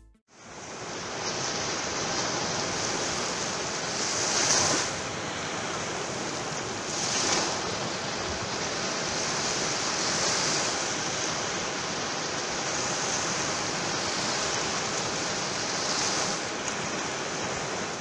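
Sea surf rolling and breaking onto a sandy shore: a steady rush of water that swells louder several times as waves break.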